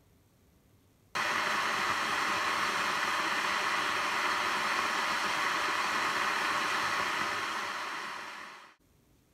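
Glass electric kettle with water at a rolling boil: a steady hiss of boiling water that starts abruptly about a second in and fades away near the end.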